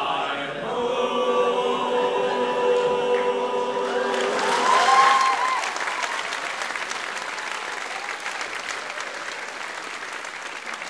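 A group of voices singing a held final chord, then audience applause breaking out about four seconds in, with a whoop just after, slowly fading.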